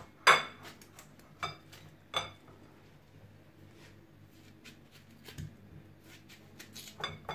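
Sharp clinks of a knife and ceramic plates as watermelon is cut off the rind onto the plates. Three clear clinks come in the first two seconds, the first the loudest, followed by fainter taps.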